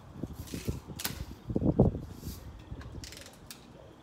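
BB gun being handled and cocked: a run of mechanical clicks and rattling knocks, the loudest clatter a little under two seconds in, with a few sharp clicks.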